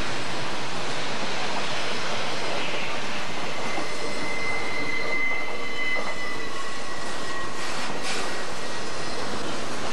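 Southern Pacific intermodal freight cars, trailers on flatcars, rolling past close by with a steady rushing rumble of wheels on rail. A wheel squeals on the curve with a thin high tone from about four to seven seconds in, and there is a short sharp clank near the end.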